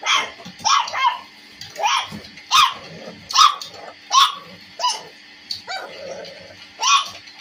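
Puppy about a month old yipping: a string of about ten short yaps, each rising and then falling in pitch, coming roughly one a second.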